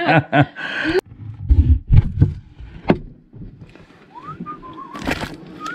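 A woman laughing, then low bumps and a click of handling noise, then a few short whistled notes near the end, one rising in pitch.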